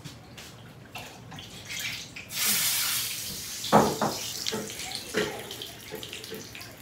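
Water running or splashing in a kitchen: a sudden rush about two seconds in that fades away gradually. Two sharp knocks follow, the first of them the loudest moment.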